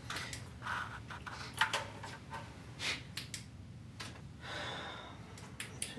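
Scattered light clicks and taps over a low steady hum, with a short soft rush of noise about four and a half seconds in.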